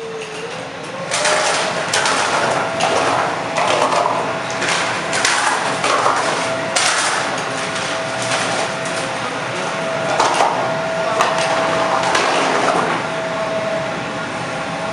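Battery-powered vacuum street sweeper's suction fan whining, rising in pitch during the first second and then holding steady. Over it come repeated short rattling bursts as litter is sucked in.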